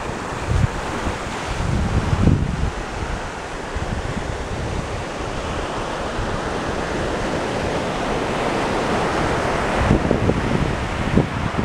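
Small waves washing onto a pebble beach, with wind buffeting the microphone in low gusts, strongest about two seconds in and near the end.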